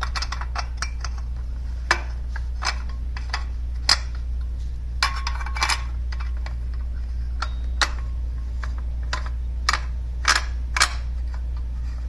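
Irregular metallic clinks and taps of stainless steel bolts and aluminium hitch parts being handled and fitted together, bolts being pushed through lined-up holes, over a steady low hum.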